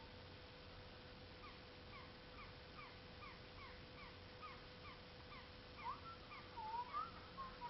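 Birds calling: a run of short rising chirps, about three a second, then a few longer gliding calls near the end.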